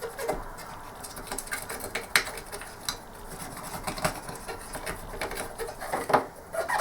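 Irregular light clicks, taps and rubbing of a cotton bud wetted with isopropyl alcohol being worked over a plastic ball-mouse housing, with the housing handled on the bench.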